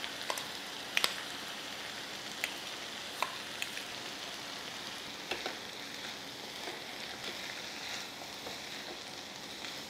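Vegetables sizzling steadily in a pan on high heat with no oil, their cooking water boiling off. A spatula stirring them clicks against the pan several times.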